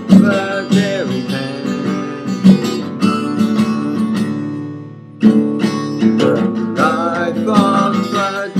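Acoustic guitar strummed in an instrumental break between sung lines. About four seconds in, a chord is left to ring and fade, then strumming starts again sharply a second later.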